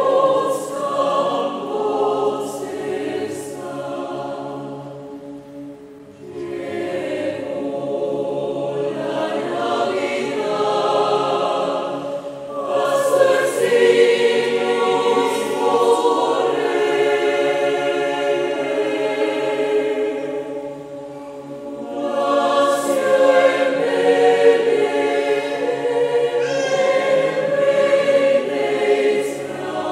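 Choir singing a traditional French Christmas carol in sustained phrases, with short breaks between phrases at about six and twenty-one seconds.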